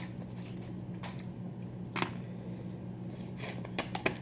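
Close-up eating sounds of boiled crawfish: short wet mouth smacks and clicks, one about two seconds in and a quick cluster near the end, over a steady low hum.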